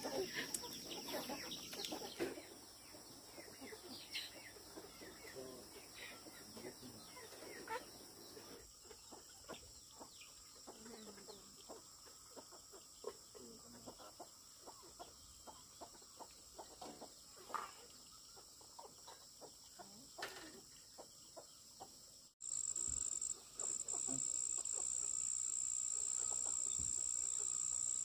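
Domestic chickens clucking in a farmyard, short scattered calls at a low level. About two-thirds of the way through the sound cuts to a steady high-pitched insect drone.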